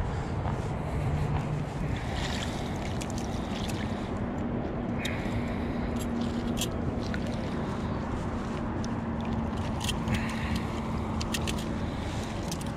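Steady low rumble with a faint steady hum through the middle, and scattered small clicks and rustles of handling.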